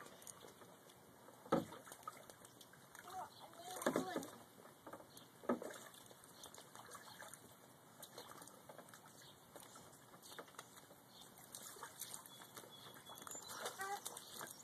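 A few separate splashes and sloshes of water in a small inflatable paddling pool as a toddler moves about and scoops with a plastic cup. Brief child vocal sounds come near the end.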